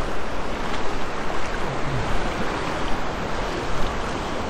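Small waves of shallow, calm surf washing in and lapping steadily, a continuous rushing hiss.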